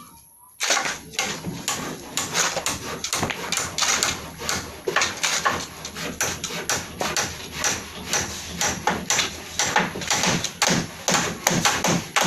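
Manual construction work: a dense, irregular run of short knocks and scrapes, several a second, beginning about half a second in.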